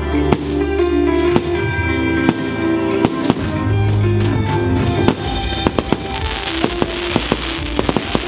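Fireworks display: sharp bangs of shells bursting over loud music, with a dense crackling of glitter effects setting in about halfway through.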